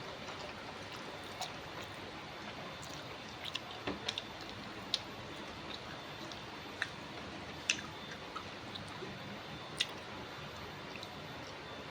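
Mukbang eating sounds: scattered sharp mouth clicks and smacks of chewing a meal, over a steady background hiss.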